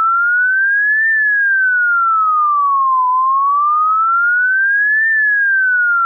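Ambulance siren wail as a single pure electronic tone, sliding slowly up and down, about two seconds rising and two falling, peaking twice.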